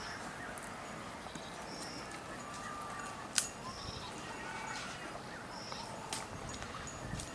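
Wild birds calling with short whistled notes, over a short high chirp that repeats about every two seconds, and a single sharp click about three seconds in.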